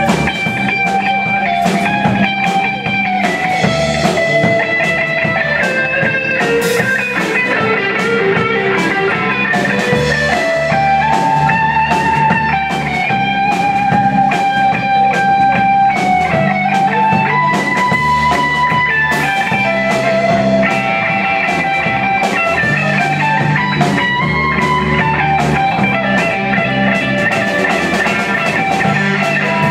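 Live rock band playing an instrumental passage: electric guitar playing a melodic lead line over bass guitar and a steady drum beat.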